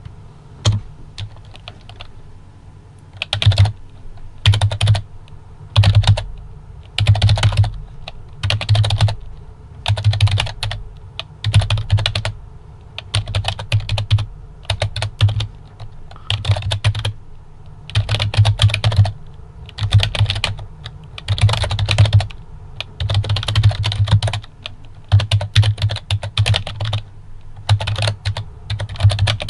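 Typing on a PFU Happy Hacking Keyboard Lite 2, a rubber-dome keyboard. Quick runs of key clicks with a low thud under them, in bursts of about a second with short pauses between.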